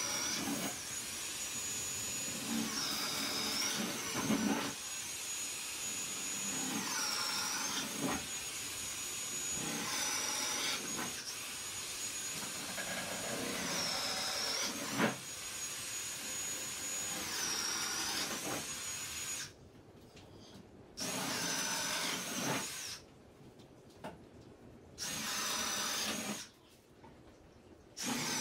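Milwaukee Hole Hawg electrician's right-angle drill boring holes through wooden wall studs. The motor runs almost continuously for about twenty seconds, its whine dropping in pitch several times as the bit bites into a stud, then runs in three shorter bursts with pauses between.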